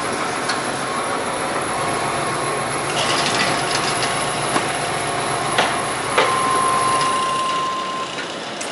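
Van engine running steadily at idle, with a few sharp clicks; its low hum drops away about seven seconds in. A steady high tone sounds for about two seconds near the end.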